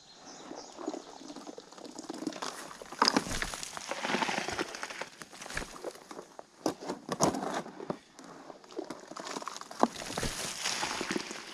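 Wet, rather watery concrete being scooped out of a black feed tub and poured into fence-post holes: irregular scraping and rustling with a few sharp knocks.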